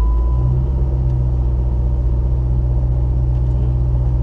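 A 2005 Dodge Magnum's engine idling steadily with a low, even rumble. A thin steady electronic tone stops about half a second in.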